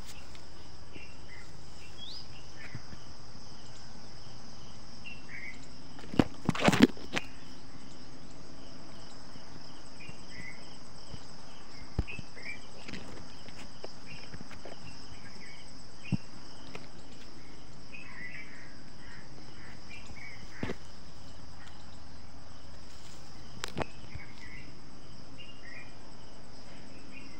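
Steady high-pitched insect chorus of crickets, with scattered short chirps over it. A few sharp knocks of handling or footsteps cut through, the loudest cluster about six and a half seconds in.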